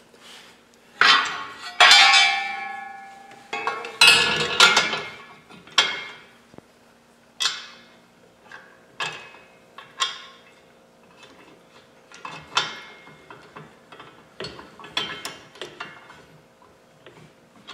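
Steel bolts and mounting hardware clinking and knocking as they are picked up and fitted to a winch mount by hand: a string of sharp metal clinks, the loudest in the first few seconds, some ringing briefly.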